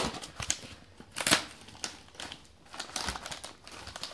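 Hands opening a cardboard mailer and handling the plastic-wrapped item inside: irregular crackles, scrapes and crinkles of cardboard and plastic, with a sharp crack right at the start and another about a second in.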